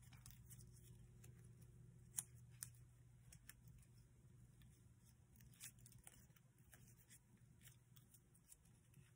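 Faint handling of a paper origami model as it is shaped and creased: scattered soft ticks and crinkles of paper, over a low steady hum.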